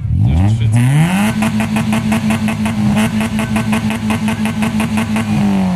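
Car engine through its modified exhaust, revved hard from idle right at the start and held flat out at a steady high pitch with a rapid, even stutter, then dropping back near the end.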